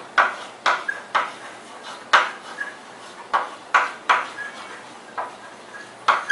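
Chalk tapping and scraping on a blackboard as letters are written: a string of short, sharp clicks, irregular, about two a second.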